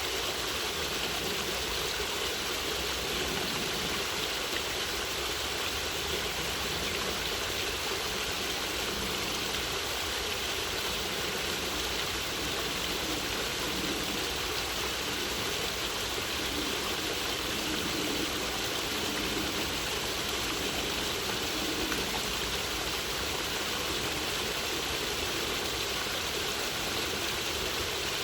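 A stream of running water rushing and gurgling steadily, without pause.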